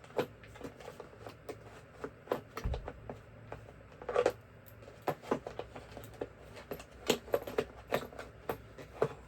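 Irregular small clicks and rattles of screwdriver bits being handled and pushed into the slots of their case.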